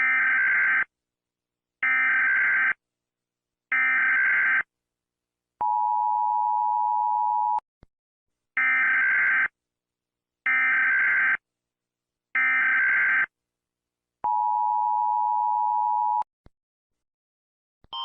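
United States Emergency Alert System tones: three short warbling SAME data bursts, then the two-tone attention signal for about two seconds, then three more data bursts and the two-tone signal again.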